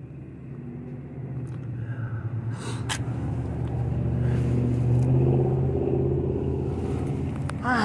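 A car engine running steadily with a low rumble, growing louder over the first five seconds and easing slightly near the end.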